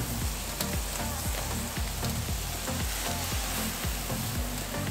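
Diced carne asada steak and torta bread sizzling on a hot flat-top gas griddle, a steady frying hiss. Background music with a regular low beat plays underneath.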